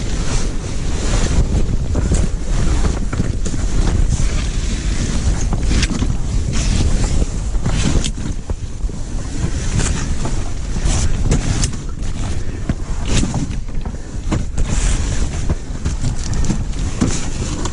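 Wind buffeting the microphone, with repeated rustling, knocks and clatter from a Clam ice shanty being unpacked and set up on the ice.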